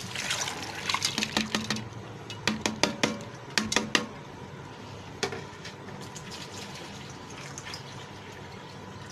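Soaked chana dal (split chickpeas) poured from a bowl onto raw beef chunks in a pot: a wet, crackling rush of lentils for the first two seconds, then several sharp taps between about two and four seconds in and one more near five seconds.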